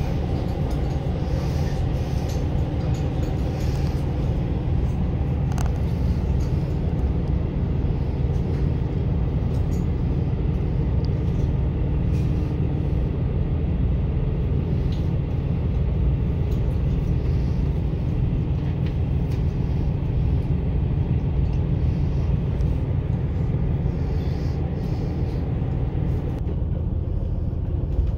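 Steady low running rumble of an Echigo Tokimeki Railway ET122-1000 diesel railcar, heard from inside the passenger car as it travels. The higher part of the noise thins out near the end.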